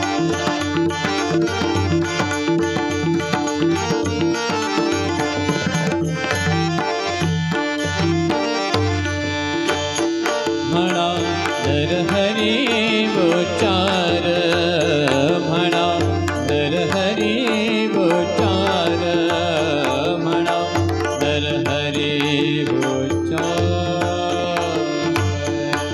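Indian devotional abhang music: a drum beat, likely tabla, keeps a steady rhythm under sustained instrumental melody. From about halfway in, a singing voice adds long, wavering, wordless notes.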